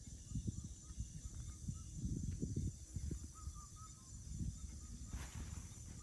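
Outdoor ambience: a steady high insect-like drone with a few short soft chirps, over irregular low rumbles and thumps.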